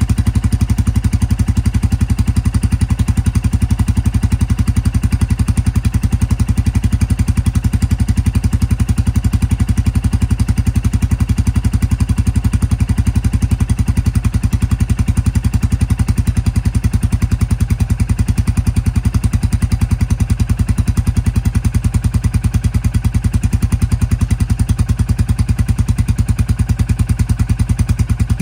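Royal Enfield Classic 350's single-cylinder engine idling steadily through a Hitchcocks freeflow stainless steel exhaust with the catalytic converter removed, a fast, even beat of exhaust pulses.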